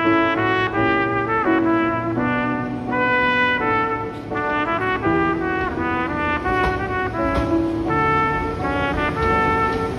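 Background music: a live-played trumpet ballad, the trumpet carrying a melody of long held notes over accompaniment.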